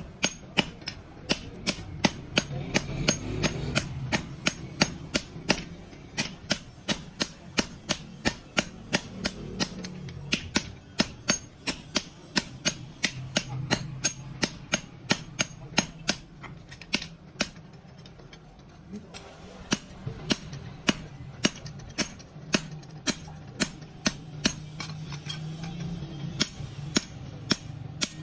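Hammer striking steel on an anvil, a steady run of ringing metallic blows at about two to three a second, with a pause of a couple of seconds a little past halfway.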